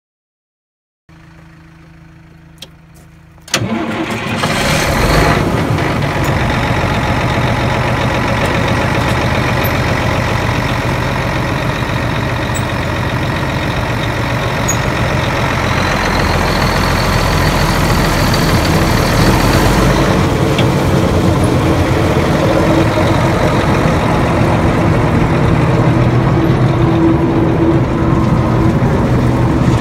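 The diesel engine of a Bandit Beast 3680 horizontal grinder, running loud and steady. A quieter steady hum jumps suddenly to full loudness about three and a half seconds in, and a faint high whine rises and fades near the middle.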